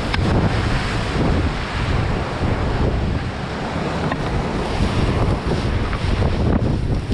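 Wind buffeting the microphone over the steady rush of sea surf.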